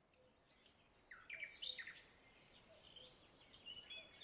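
Faint bird chirping: two short runs of quick, high chirping notes, the louder run about a second in.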